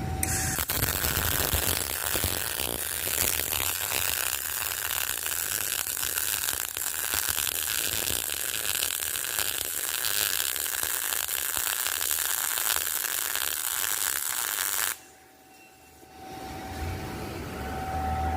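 MIG welding arc crackling steadily while a bead is run, cutting off sharply about fifteen seconds in. A low machine hum with a faint steady tone is left after the arc stops.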